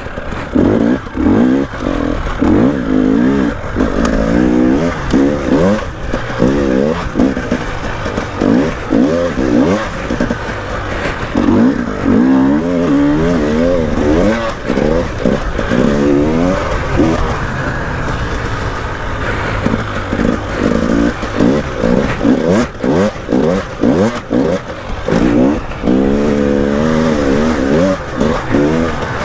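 KTM 300 two-stroke enduro dirt bike being ridden hard on a sandy trail. The engine revs up and falls off again and again as the rider works the throttle and gears.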